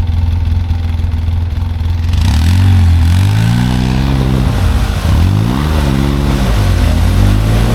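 Side-by-side UTV engine running steadily, then revving up and easing off twice, as it pulls on a recovery rope to free a machine stuck in deep snow.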